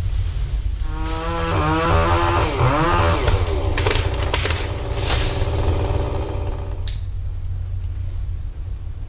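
Chainsaw running, its pitch rising and falling as it revs, with a few sharp knocks or cracks in the middle, over a steady low rumble.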